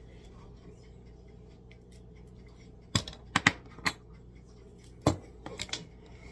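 Sharp clicks and knocks from things being handled at a kitchen counter. Four come within about a second, starting about halfway through, and three more follow near the end.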